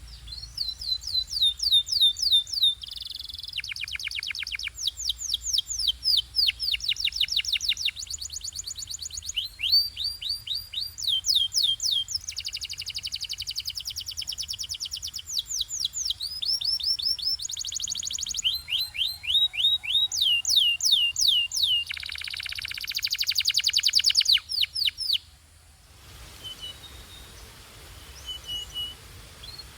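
Canary singing: a continuous song of fast, evenly repeated sweeping notes, the phrase changing every second or two, with some denser buzzy rolls. Near the end the song drops to fainter, sparser notes.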